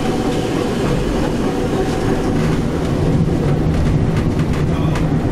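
Vintage 1905 BC Electric interurban streetcar running along the track: a steady low electric motor hum that grows stronger about two seconds in, over the clatter of the wheels on the rails with a few sharp clicks from rail joints.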